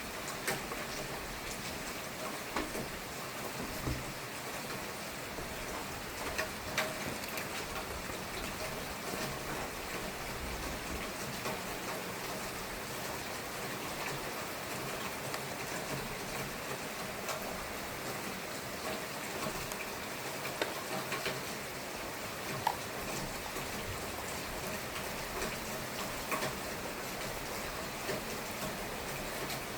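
Steady rain falling, with scattered sharper drop hits and drips now and then.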